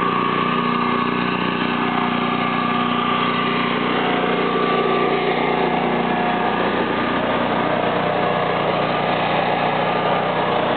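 Gas-fired Kohler home standby generator's engine running at a steady speed, an even drone with no change in pitch. It has started automatically because the transfer switch sensed the mains power go off, and is now carrying the house.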